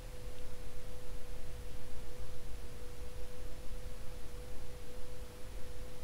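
Commander Angel ceiling fan running on a five-speed control, giving a steady mid-pitched motor hum over an uneven low rumble. No grinding or ticking is heard: its bearings are in near-perfect condition.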